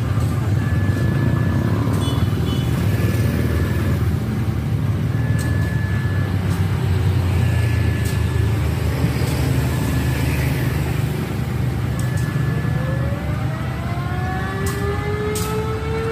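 CC 201 diesel-electric locomotive running with a steady low rumble as it moves slowly on a shunting run. Short high beeps repeat every second or two throughout. In the last few seconds a slowly rising whine sets in, along with a few sharp clicks.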